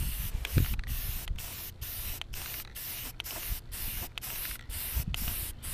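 Aerosol can of enamel spray paint spraying in short passes, a hiss that starts and stops about twice a second.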